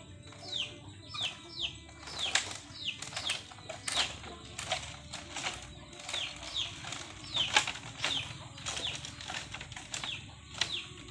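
Footsteps on a woven bamboo footbridge: irregular sharp clicks and creaks as the split-bamboo slats flex and knock under the walkers' weight, with short high squeaks that fall in pitch.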